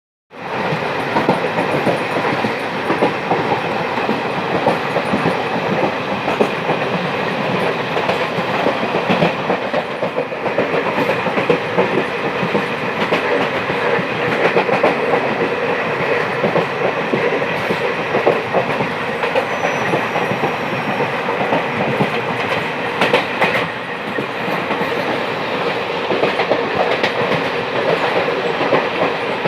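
Running noise of a moving vehicle: a steady rumble with irregular rattles and clicks.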